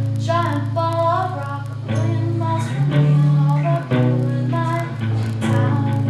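Live song: electric guitar played through a small amplifier, with steady low notes that change every second or so, and a woman singing over it.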